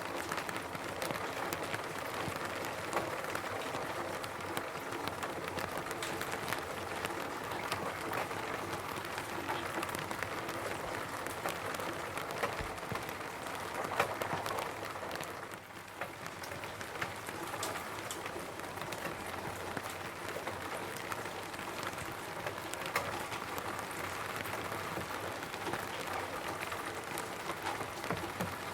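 Rain falling on a roof: a steady dense patter of many drops, with sharper individual drop hits scattered through it. The patter eases briefly a little past halfway, then picks back up.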